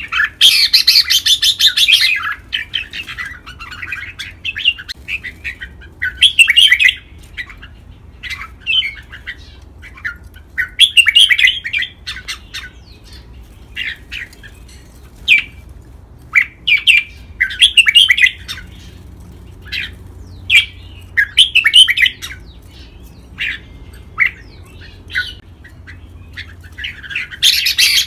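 Red-whiskered bulbul singing: short, bright chirping phrases every second or two, with a dense burst of chattering song at the start and again near the end.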